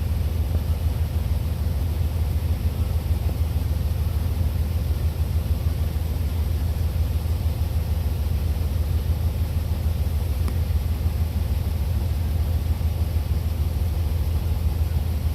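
Cummins N14 diesel of a 1999 International 9400 semi idling, a steady low rumble heard from inside the cab.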